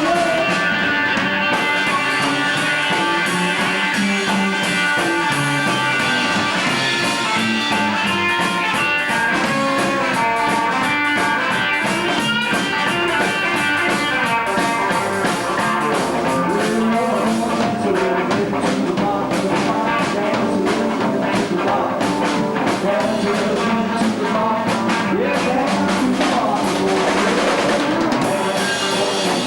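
A live rockabilly band playing, with electric guitar and drum kit carrying a steady beat and cymbal strokes coming in about eight seconds in.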